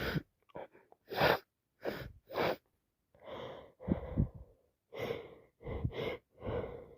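A woman in a sneezing fit: repeated short sneezes, sniffs and sharp in-breaths in quick succession. She can't tell whether the fit is from allergies or a cold.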